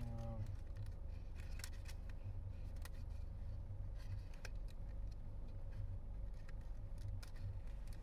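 Small cardboard snack box and the plastic packet inside it being opened by hand: scattered light clicks and crinkles over a low steady rumble.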